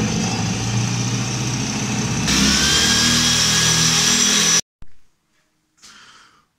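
Corded electric drill running under load, its bit drilling out a seat mount in a car's steel floor pan. About two seconds in it gets louder and a rising whine appears as the bit bites into the metal; it cuts off suddenly a little past four seconds, followed by a few faint brief knocks.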